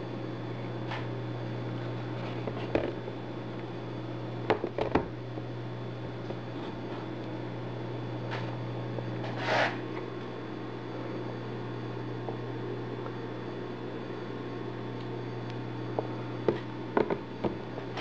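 A steady low hum with a few scattered light clicks and knocks as a tablet is handled and its screen tapped, and one short rushing hiss about halfway through.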